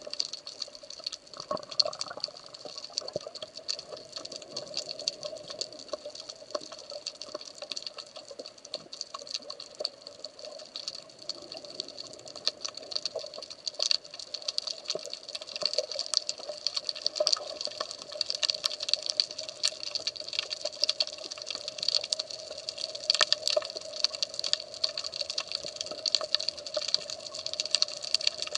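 Underwater sound over a rocky seabed: a constant, dense crackle of fine clicks over a steady hum.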